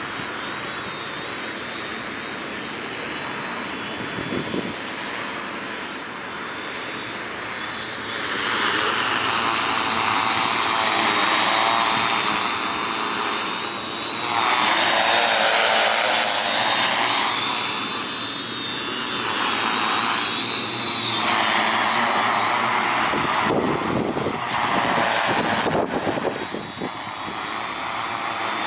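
Tarot T810 hexacopter's six 320kv motors spinning 15-inch carbon propellers in flight: a continuous whirring drone with a thin high motor whine, swelling louder and fading several times as the craft moves about.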